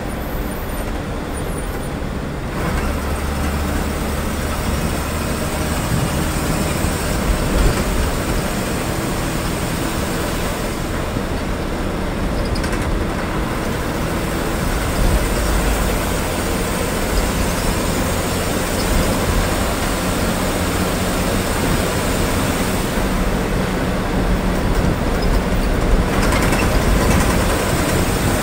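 Inside a moving KSRTC bus: its diesel engine running with road and cabin noise as it drives along a highway. The low engine drone grows a little louder about two and a half seconds in.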